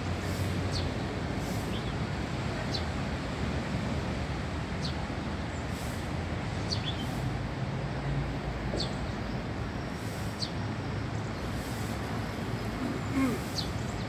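Tree sparrows giving short, high chirps, each dropping in pitch, about one every second or so at uneven intervals, over a steady low hum of city traffic. A brief louder sound comes near the end.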